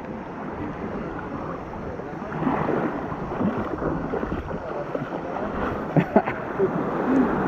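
Shallow sea water lapping at the shore, with wind buffeting the microphone, while a person wades out onto the beach. Two sharp knocks come about six seconds in.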